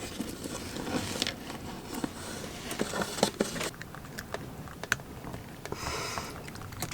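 Irregular small clicks, taps and rustling of small parts and wiring being handled and fitted at close range.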